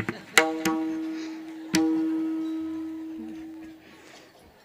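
A few strokes on a tuned hand drum, each a sharp tap followed by one steady ringing note that slowly dies away. The last ring fades out about four seconds in.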